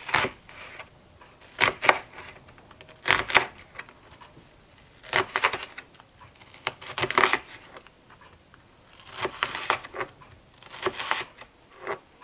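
Kitchen knife slicing red onion into slivers on a plastic cutting board: crisp crunching cuts with the blade knocking the board, in short clusters about every one to two seconds.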